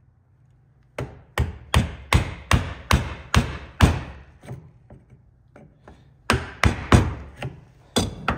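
Mallet blows on a mortise chisel chopping out a through mortise in timber from the second side, going just over halfway: a run of about eight sharp knocks at two to three a second starting about a second in, a pause, then another run of about six.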